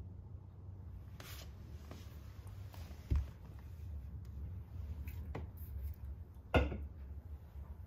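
Quiet handling sounds of a hand moving a drink can beside a puppy on a fleece-covered chair: a few soft rustles and two short knocks, the louder one about six and a half seconds in, over a low steady hum.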